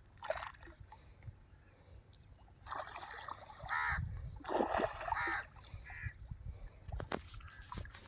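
Crows cawing a few times, over light splashing and dribbling of water where fish come up to take the feed at the water's edge.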